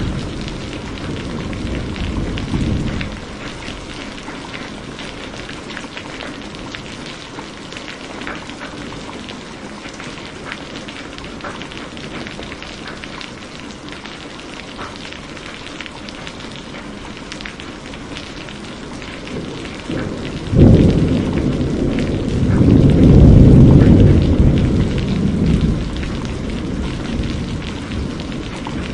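Heavy rain falling steadily, with dense splashing of drops. A low rumble of thunder dies away in the first few seconds. About two-thirds of the way through, thunder breaks with a sudden crack and rolls on in a loud rumble that swells for a few seconds before sinking back under the rain.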